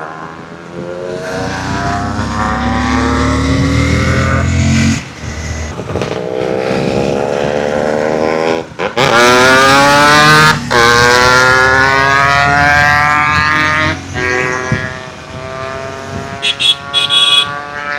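Yamaha RX135 two-stroke single-cylinder with an open-cat silencer packed with ceramic glass wool, accelerating through the gears. The note rises in each gear with short breaks at the gear changes, then eases to a steadier, lower running near the end.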